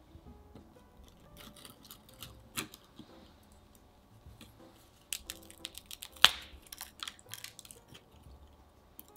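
A crisp, thin rolled chocolate langue de chat cookie snapped in two with one sharp crack about six seconds in. Light clicks of the brittle cookies being handled come before and after it.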